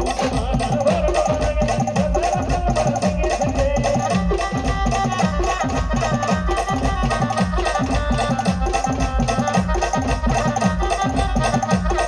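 Brass band playing a folk-style tune, with a melody line held over a loud, steady, repeating drum beat.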